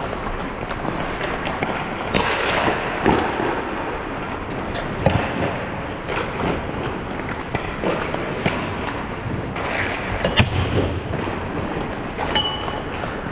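Ice hockey play: skates scraping across the ice, with sharp clacks of sticks and puck at irregular moments, the loudest about ten seconds in.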